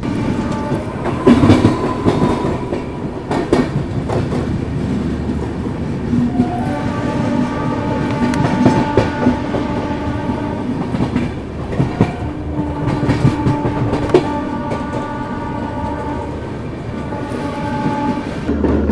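Moving train heard from an open coach doorway, its wheels clattering over the rail joints. Two long train-horn blasts sound over it, the first about a third of the way in and the second about two-thirds in, each lasting four to five seconds.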